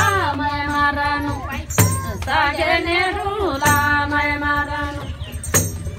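Tamang selo juhari folk singing: a woman's voice holds long, wavering notes over a damphu frame drum struck about once every two seconds, four beats in all.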